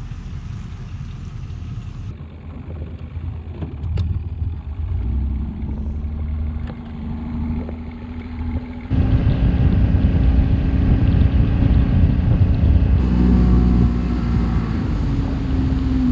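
A boat's motor running with a low rumble and a steady hum. The sound changes abruptly a few times and gets louder about nine seconds in.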